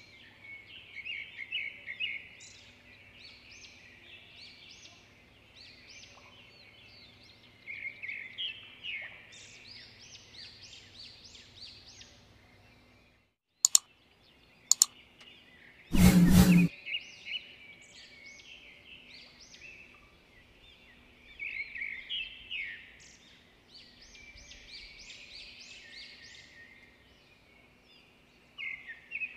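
Small birds chirping and twittering in quick runs over a faint steady hum. About halfway the chirping drops out briefly, two sharp clicks follow, then one loud dull thump of under a second before the chirping resumes.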